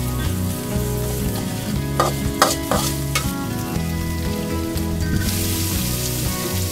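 Metal spatula stirring and scraping chilli paste around an aluminium wok as it sizzles in hot oil, with a few sharp scrapes about two to three seconds in. About five seconds in the sizzle grows louder and brighter as a handful of fresh sliced greens is tipped into the hot pan.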